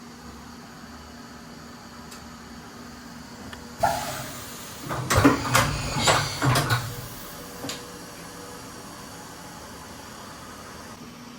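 Steady hum of a CNC vertical machining center running under power, with a sudden mechanical clunk about four seconds in, then a burst of metallic clanks and knocks for about two seconds.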